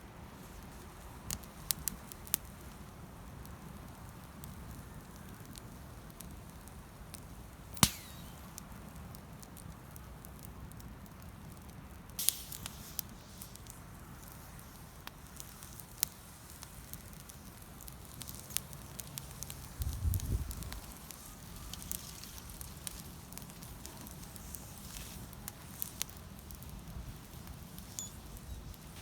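Wood campfire crackling, with scattered sharp pops, one much louder than the rest about a quarter of the way in. A brief low thud or rumble comes about two-thirds of the way through.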